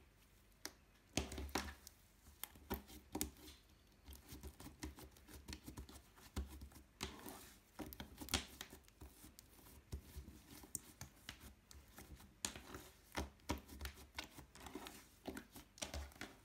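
Glitter slime being kneaded, folded and pressed by hand, making irregular sticky clicks and pops that start about a second in.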